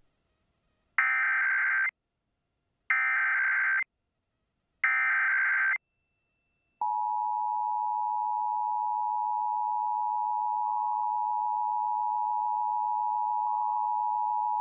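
Emergency Alert System test signal: three one-second bursts of the SAME digital header data with short gaps between them, a brief pause, then the two-tone EAS attention signal (853 and 960 Hz sounded together), held steady for about eight seconds.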